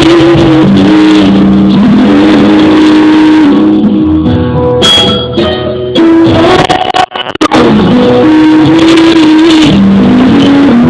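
Loud music with a guitar-led melody, thinning out and briefly dropping out a little past halfway before coming back in full.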